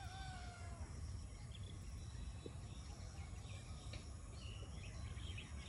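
Outdoor ambience: short bird calls now and then over a steady low rumble, with a faint steady high-pitched hiss.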